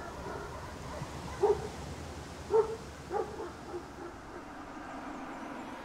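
Street ambience: a steady low hum of traffic. A dog barks a few short times around the middle, the first two barks the loudest.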